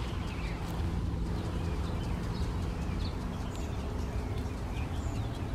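Short, high bird chirps scattered throughout, over a steady low rumble.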